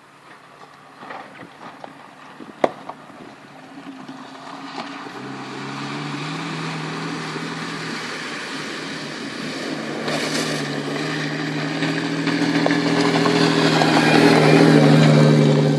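A vehicle's engine driving through a river ford, a steady drone that comes in about five seconds in and grows louder toward the end, over the rush of water. A single sharp click comes about two and a half seconds in.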